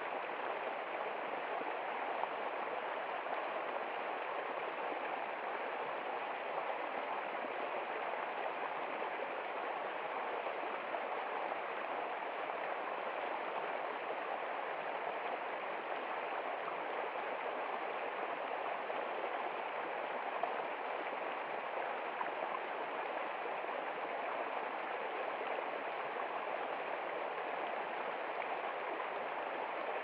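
Small forest stream rushing over rocks in a steady, unbroken rush of water.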